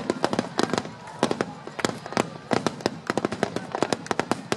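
Aerial firework shells bursting in a rapid barrage: many sharp bangs, several a second, overlapping one another.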